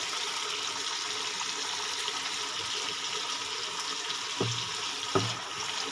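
Yogurt-and-spice masala sizzling steadily as it fries in oil in a pan. Two dull knocks come near the end.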